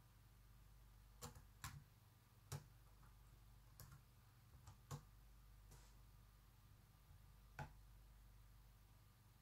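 A few faint, scattered clicks from a laptop's keys and touchpad, about six spread over several seconds, while a password is entered and Next is clicked, over a faint low hum.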